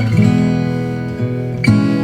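Background music led by an acoustic guitar, with plucked notes and strummed chords changing every half second or so.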